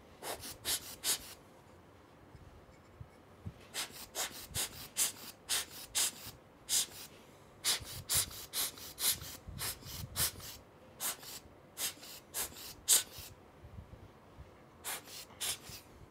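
Hand-squeezed rubber air blower puffing air in short sharp hisses, in quick runs of several puffs with brief pauses between, blowing dust off a camera UV filter.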